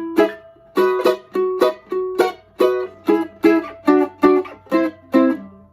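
Flat-top mandolin with a Sitka spruce top and ladder bracing played in chop chords: short chords struck and quickly damped, about two to three a second, coming faster in the second half. Not much of a chop, but not bad for a flat-top mandolin.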